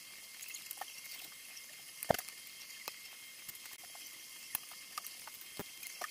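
Scattered small clicks and taps of hard plastic as a 3D-printed clock frame is pressed onto a wall clock and the clock is worked on with a small tool, with one sharper knock about two seconds in.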